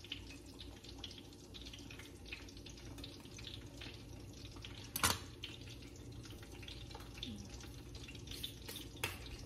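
Food frying in hot oil: faint, steady crackling and spitting. There is one sharp knock about five seconds in.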